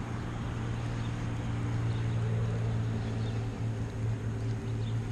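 Steady low mechanical hum, even in level throughout.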